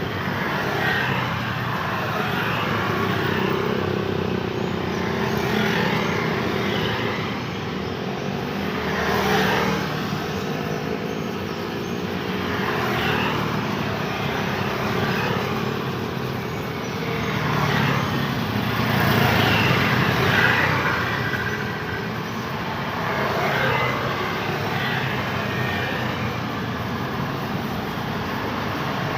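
Continuous road traffic on a busy street: cars and motorbikes passing one after another, a fresh pass swelling and fading every few seconds over a steady hum of engines and tyres.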